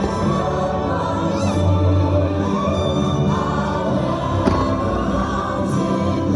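Choir singing over music, with a brief faint pop about four and a half seconds in.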